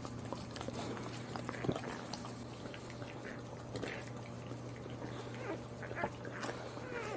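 Newborn puppies making short, high squeaks and whimpers, with scattered small clicks, over a steady low hum.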